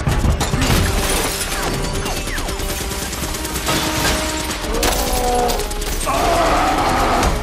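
Film sound mix of sustained automatic gunfire: rapid shots with bullets striking and ricocheting, and debris and glass crashing, over a music score.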